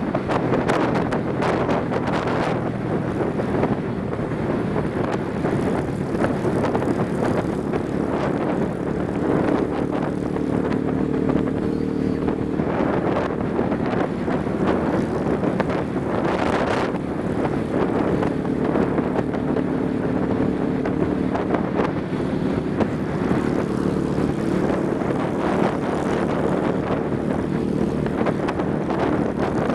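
Motorcycle riding at steady road speed: engine running under a loud, steady rush of wind on the microphone, with an engine hum that rises out of the noise and fades again several times.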